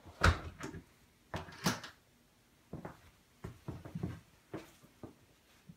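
A door knocking in its frame: one sharp bang, two more about a second later, then a string of lighter knocks and taps.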